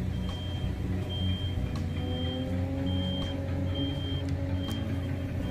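Vehicle warning beeper sounding a steady high beep about once a second over a low engine rumble, from the machinery shunting the unpowered train set along the track.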